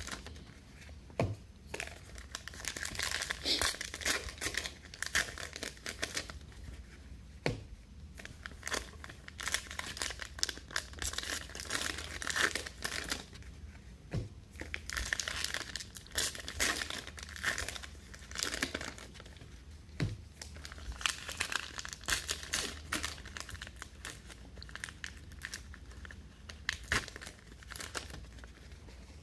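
Foil trading-card pack wrappers crinkling and being torn open, with cards handled in between and a soft knock about every six seconds.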